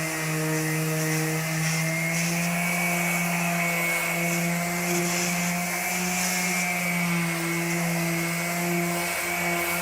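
Electric sander with 150-grit paper running against bare steel: a steady motor whine whose pitch wavers slightly as pressure changes, over a hissing scrape.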